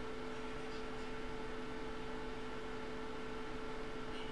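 Steady hum with several held tones over a low hiss: background room or equipment noise with nothing else happening.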